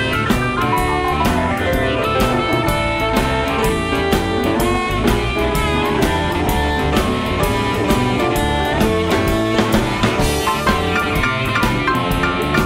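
Electric Chicago blues band playing an instrumental passage: electric guitar lines over a steady drum-kit beat.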